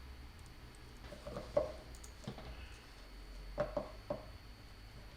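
Faint handling sounds of wiring work: a few scattered soft clicks and taps from wires and a hand tool being worked, over a steady low hum.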